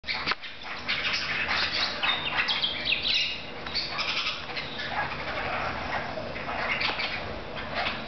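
Small green parrots chattering and squawking, many short, shrill calls in quick succession that overlap each other.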